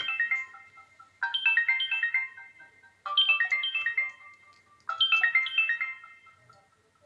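Samsung Galaxy Ace (GT-S5830i) stock ringtone: a bright phrase of quick notes stepping downward, repeated three times about two seconds apart. The last phrase dies away near the end.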